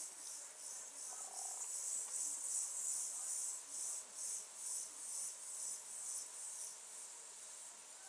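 Field cricket (Gryllus campestris) singing: a steady series of short, high-pitched chirps, a few a second, growing weaker near the end.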